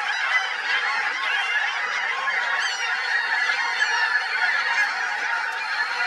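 Dense chorus of a large flock of birds calling all at once, many overlapping calls with no let-up.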